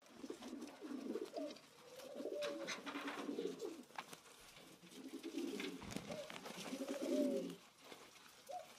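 Pigeons cooing over and over, low rising-and-falling calls, with light crisp clicks scattered among them.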